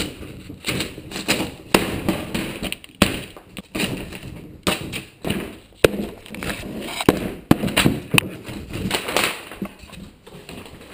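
A blade stabbing and cutting into a cardboard box: a run of irregular thuds and taps with scraping between them.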